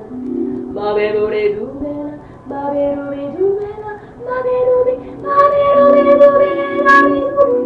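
A high voice singing long held notes, sliding up into some of them, over ambient music with steady low sustained tones. The voice is loudest in the second half, on one long high note.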